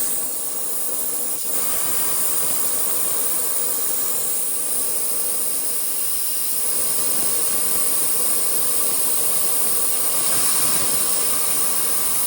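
Kobalt 26-gallon Quiet Tech air compressor tank venting its compressed air, a loud, steady hiss as the tank is emptied.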